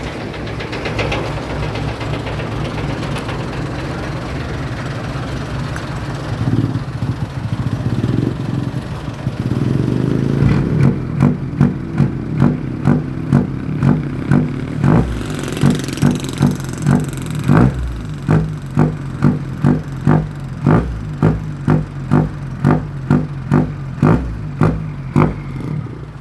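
Truck engine exhaust through an original Mitsubishi Canter muffler. It idles steadily with a couple of brief swells, then from about ten seconds in is blipped in quick, even pulses, about two a second.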